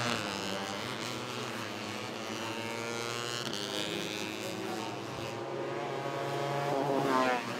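Several 150cc four-stroke fuel-injected underbone racing motorcycles running at high revs, engine pitch rising and falling as they accelerate and pass. One bike goes by loudest about seven seconds in.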